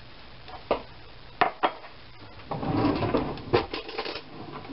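Glassware and kitchen utensils being handled: three sharp clinks in the first two seconds, then nearly two seconds of scraping and rattling with another knock in it.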